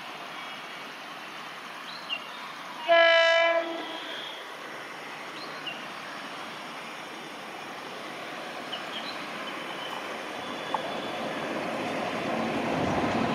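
WAP-5 electric locomotive's horn sounding one short blast about three seconds in, over the steady noise of the approaching train, which grows louder toward the end.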